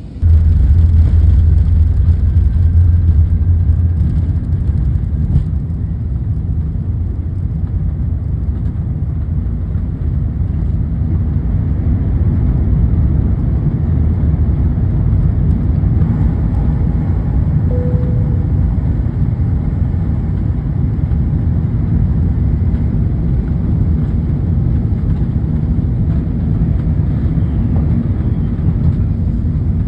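Airbus A380 jet noise: a steady low rumble of engines and rushing air, loudest in the first few seconds and then holding even.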